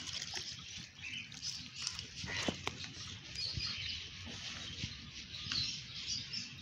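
A rubber-gloved hand rubbing a dog's wet fur, a soft wet rustling with scattered small clicks.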